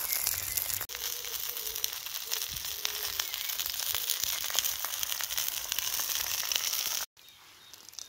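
Sausages, eggs, tomatoes and potatoes sizzling in oil in a Petromax wrought-iron skillet over a campfire: a steady frying hiss with many fine crackles. It cuts off suddenly about seven seconds in.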